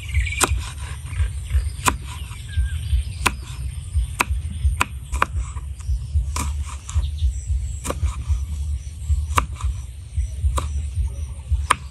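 Kitchen knife slicing red chillies on a thick round wooden chopping block: a dozen or so sharp knocks of the blade on the wood, unevenly spaced about once a second, over a steady low rumble.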